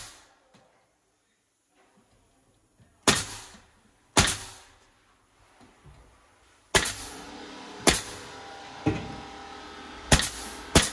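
Nail gun firing nails into a wooden shelf support, about seven sharp shots a second or so apart. A steady hum comes in about two-thirds of the way through.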